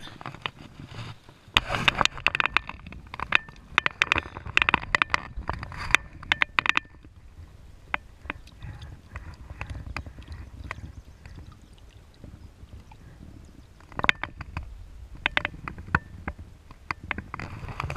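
Water splashing and sloshing at the waterline with many sharp knocks and clicks from handling, while a largemouth bass is held by the lip at the surface. It comes in two busy stretches with a quieter spell between.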